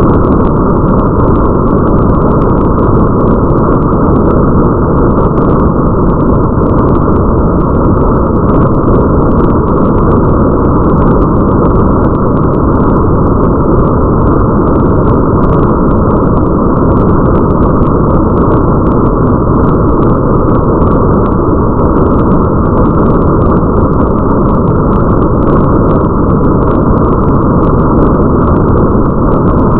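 Steady, muffled rain ambience with a deep, even rumble underneath and faint scattered ticks of drops above it, unchanging throughout.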